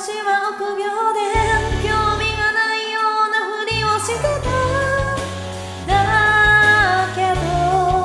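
Pop song: a female voice sings long held notes, stepping in pitch, over an instrumental backing.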